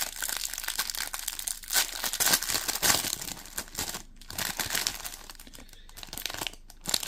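Packets of fishing hooks and their packaging being handled and sorted through: a dense run of small crackles, busiest in the first three seconds, with a short gap about four seconds in and lighter handling after.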